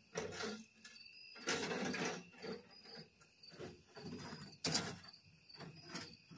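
Wheelbarrow being pushed away over rough ground, rattling and clunking in irregular bursts, with a couple of sharp knocks. Faint insects chirp steadily underneath.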